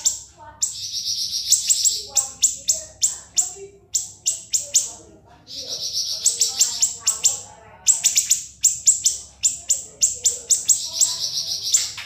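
Siri-siri songbird singing a fast, high-pitched series of sharp notes, broken three times by long buzzing trills of about a second each.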